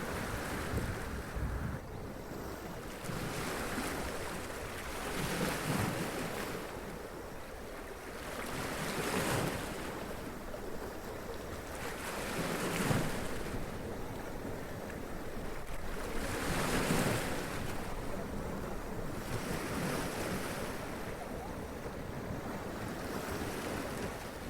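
Sea waves washing up over rocks: a steady rush of surf with a surge and splash every few seconds, the loudest about halfway through.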